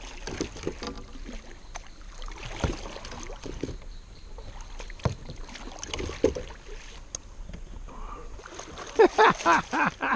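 Water splashing and sloshing beside a kayak as a hooked fish thrashes at the surface, then a paddle stroking the water, with scattered sharp knocks. Near the end, a person's voice in several short, quick bursts.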